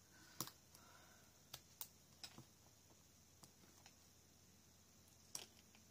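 Faint, scattered taps and small clicks of fingers pressing paper letter stickers onto a cardstock scrapbook layout, about half a dozen in all.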